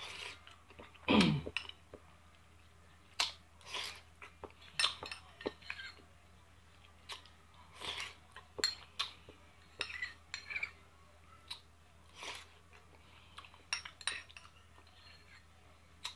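Close-up eating sounds: a metal spoon scraping and clinking in a small ceramic bowl, with mouth smacks and chewing between spoonfuls. About a second in, a short falling 'mmm' from the eater.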